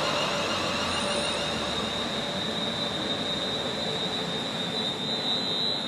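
London Northwestern Class 350 Desiro electric multiple unit slowing to a stand at the platform. There is a steady rumble with a high, steady whine throughout, and the sound eases off slightly as the train stops.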